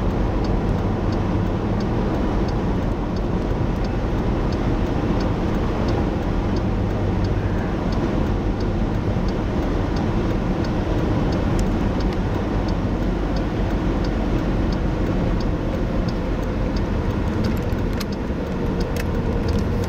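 Steady road and engine noise of a moving car, heard from inside, with a faint regular ticking about twice a second and a few sharper clicks near the end.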